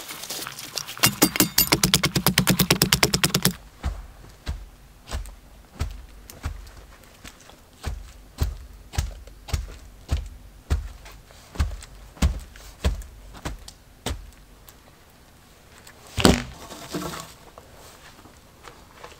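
Heavy dull thuds of a wooden pole tamping earth down around a log post set in the ground, about two a second, after a quick rapid run of blows in the first few seconds. Near the end, one single louder knock of wood.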